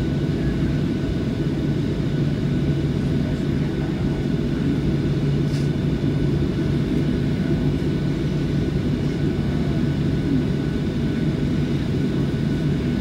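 Jet airliner cabin noise while taxiing: the engines running at low power give a steady low hum with a faint high whine above it.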